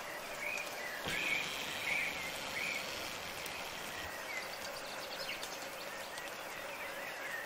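A bird calling a few short chirps over a steady background hiss. Four clear chirps fall in the first three seconds and a few fainter ones follow later.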